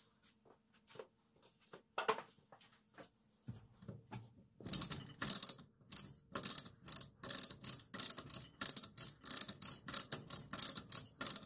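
A hand-worked ratchet clicking, a few scattered clicks at first, then from about four and a half seconds in a steady run of about three clicks a second as the handle is pumped.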